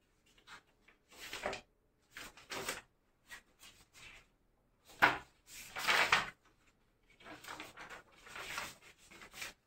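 Writing strokes: a series of short, scratchy strokes with brief pauses between them. The strongest comes about five to six seconds in.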